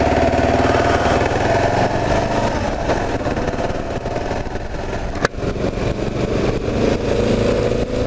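Kawasaki KLR 650's single-cylinder four-stroke engine running along the road. Its note holds steady, then eases off. A sharp click and a brief dip come a little over five seconds in, and then the note rises again as it pulls.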